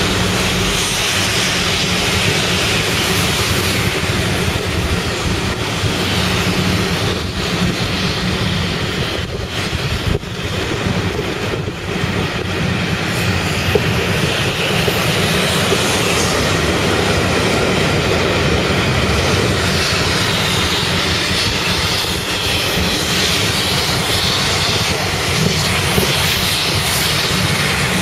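Steam-hauled passenger train running past close by: a loud, steady rumble of wheels on rail.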